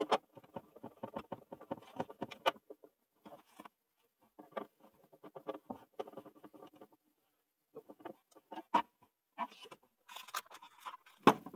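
Hands handling a grey plastic breaker enclosure, its clear cover closed and pressed shut, making a run of small irregular clicks and scrapes. Near the end, hand tools are picked up and shifted on the shelf, adding a denser cluster of clicks and knocks.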